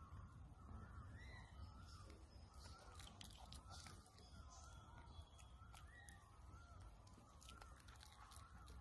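Very faint outdoor ambience: a string of soft, wavering animal calls repeating every half second or so over a steady low rumble, with a few faint clicks.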